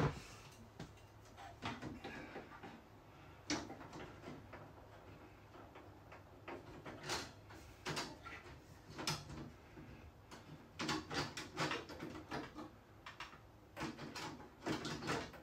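Scattered clicks, knocks and rattles of hands handling an over-the-range microwave oven and its mounting parts while it is being put back into place, with the clearest knocks about three and a half seconds in and in clusters near the middle and the end.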